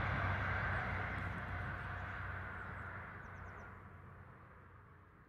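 High Speed Train with Class 43 diesel power cars running away into the distance: a low engine drone and rail rumble fading steadily away.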